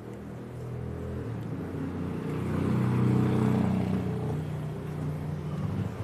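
A motor vehicle's engine running as it passes: a steady low hum that grows louder to about three seconds in, then fades.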